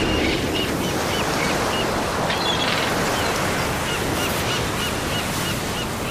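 Ocean surf washing steadily on a beach, with a small bird giving short, quick chirps in runs, about four a second over the latter part.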